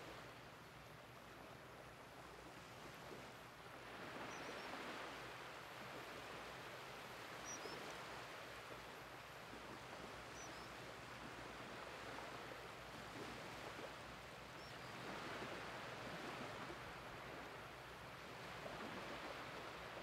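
Small waves washing in over a shallow, flat beach as the tide comes in: a soft, faint hiss of surf that swells about four seconds in and again near the end.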